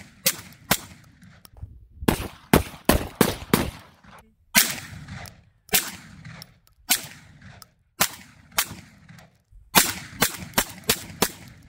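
Panzer Arms M4 12-gauge semi-automatic shotgun fired rapidly, in several quick strings of shots with short pauses between strings. The gun cycles and ejects a shell after each shot.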